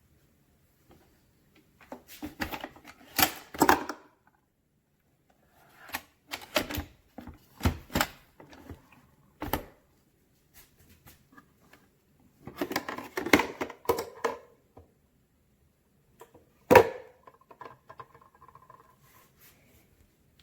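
Clusters of sharp clicks and knocks, with one loud knock near the end followed by a faint brief hum: hard objects being handled and set down.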